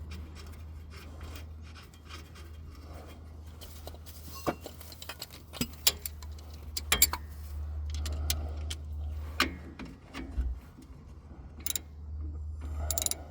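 Scattered metallic clicks and clinks of hand tools, a wrench and ratchet, working a nut onto a shock absorber's mounting bolt, with a steady low hum underneath.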